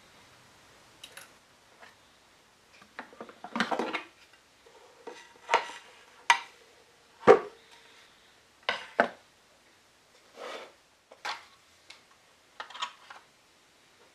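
Small hand tools and wooden pieces being picked up and set down on a workbench: scattered clicks, taps and light clatter, with one louder knock about seven seconds in.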